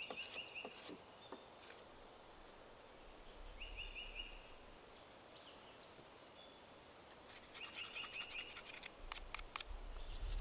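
Quick scraping strokes of a hand tool on wood, about a dozen in the last three seconds, against a short chirping trill that repeats every few seconds.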